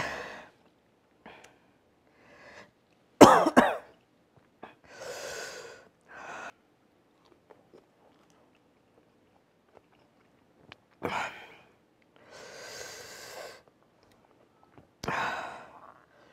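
A man coughing and breathing hard through his mouth from the burn of a Carolina Reaper hot wing: a sharp cough about three seconds in, then scattered coughs and long breathy exhales.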